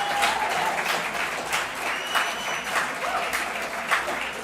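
Audience in a hall applauding steadily, many hands clapping together, easing off slightly toward the end.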